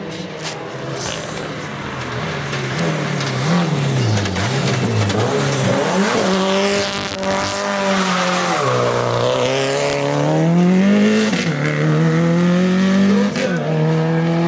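Subaru Impreza rally car's turbocharged flat-four engine coming on and off the throttle into a corner, tyres squealing as it slides through, then revving up hard as it accelerates away, with two quick upshifts near the end.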